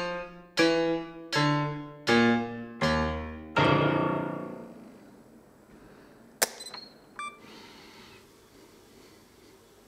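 Piano chords struck one after another, a little faster than one a second, stepping lower in pitch each time; the last and lowest rings out and fades over about a second and a half. Then, well after the middle, two sharp clicks of a camera shutter.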